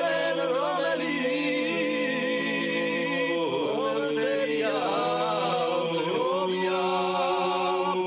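Men singing in Georgian folk style: a lead voice carries a winding melody into a microphone above a steady low drone held by other male voices.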